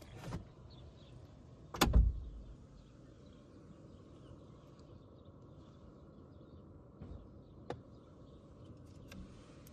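Car passenger door shut from outside, heard from inside the car: one heavy thud about two seconds in, after a softer knock as the door swings. A short faint click comes later.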